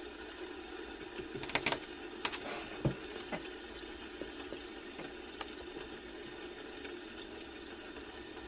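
A few scattered computer keyboard keystrokes: a quick cluster of clicks about a second and a half in, then single clicks, over a steady low hum.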